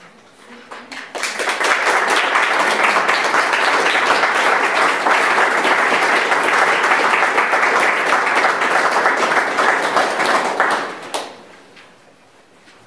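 Audience applauding: the clapping builds about a second in, holds steady and loud for some ten seconds, then dies away near the end.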